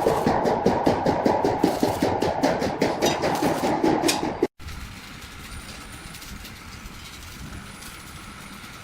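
Rapid, evenly repeated hammering on metal, several blows a second, which cuts off abruptly about four and a half seconds in; after that only a steady low background noise.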